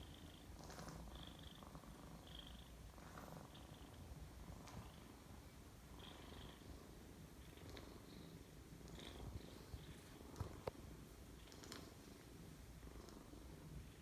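Domestic cat purring close by: a soft, steady low rumble, with a few faint ticks near the end.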